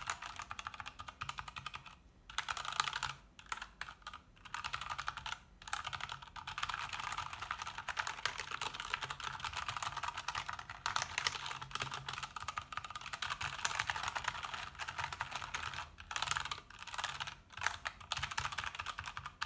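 Ajazz AK33 mechanical keyboard being typed on quickly, in fast runs of key clicks broken by a few brief pauses.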